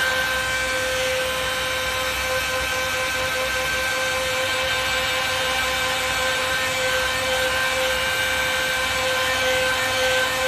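Hand-held hair dryer running steadily: a constant motor whine over the rush of blown air, drying a long-haired cat's fur.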